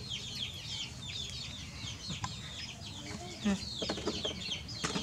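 Birds chirping: a steady chorus of many short, high, falling chirps, with a lower call about three and a half seconds in.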